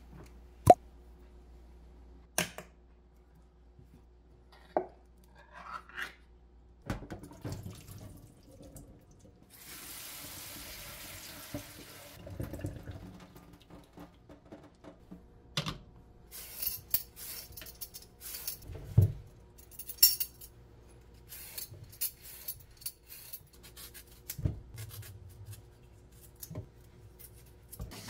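Kitchen sink work: a can of sweet corn set down and handled with a few sharp clicks and knocks, then water running and splashing in a stainless steel sink as the corn is drained in a plastic colander, with clatters of the colander and dishes. Near the end, carrots are rinsed under the running tap.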